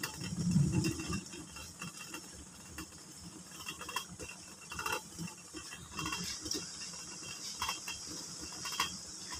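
Water boiling under a stainless-steel bowl steaming in a wok: a steady hiss with scattered light ticks and clinks every second or two. A brief low rumble in the first second is the loudest sound.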